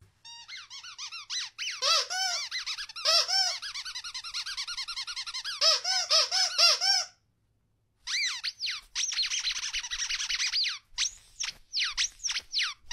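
Rapid high-pitched squeaking: many short chirps a second, each rising and falling in pitch, in two long runs with a brief break about seven seconds in.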